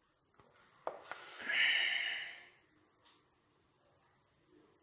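A faint click, then a man breathing out hard in a hiss for about a second.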